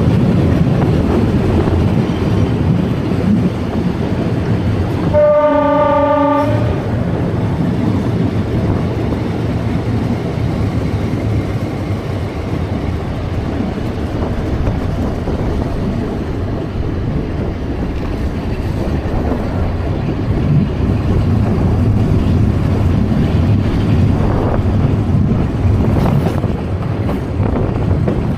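Metre-gauge electric train of the Atterseebahn on the move, with steady running noise from wheels and rails, and one horn blast about five seconds in that lasts over a second.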